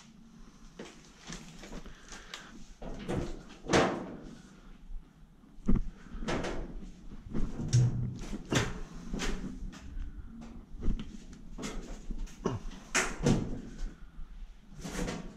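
Irregular knocks, clanks and scuffs of someone climbing a steep metal stair ladder, boots striking the treads and hands or body bumping sheet-metal panels.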